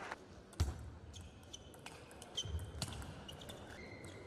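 A table tennis ball clicking off the table and bats several times at irregular intervals, with one louder knock and thud about half a second in.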